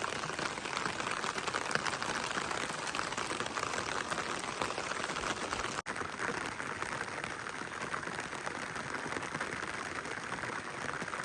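Steady rain falling, a dense patter of many small drops, with a momentary break about six seconds in.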